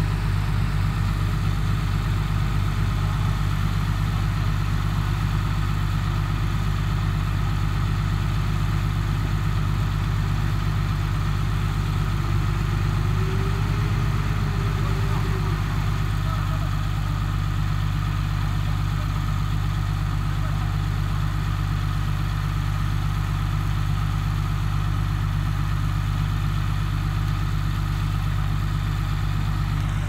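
Heavy construction-machine diesel engine running steadily at an even speed: a deep, constant drone with no revving.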